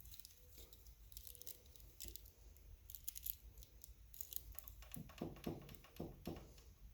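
Faint, scattered small clicks and ticks, with a short run of soft knocks about five to six seconds in.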